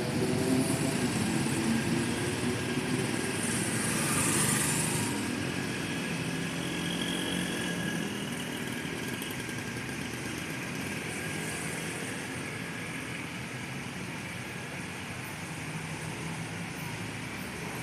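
Road traffic at an intersection: motorcycles and cars pulling away and passing, their engines rising in pitch at first, then settling into a steady rumble of passing cars that slowly grows fainter. A brief hiss about four seconds in.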